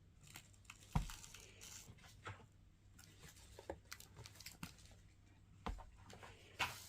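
Faint scattered clicks, scrapes and rustles of small hands playing with sand and sticks in a box, with a sharper knock about a second in and another near the end.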